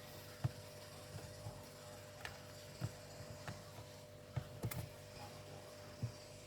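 Scattered light clicks and taps of hand work on a laptop: parts and small tools being handled against its plastic case, at irregular intervals, over a faint steady hum.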